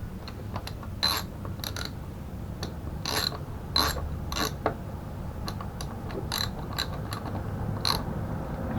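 Irregular, sharp metallic clicks and ticks of hand-tool work on a mobility scooter, about a dozen spread unevenly over several seconds.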